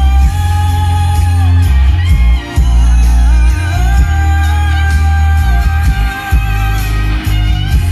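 Music played loud through a car audio system with a single JBL subwoofer: heavy, sustained bass notes under a sung or guitar melody, with drum hits.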